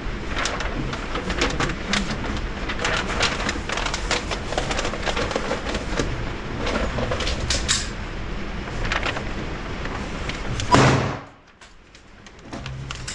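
Gunfire on an indoor shooting range: many muffled shots from the lanes at irregular intervals, with one much louder shot near the end after which the sound drops away briefly.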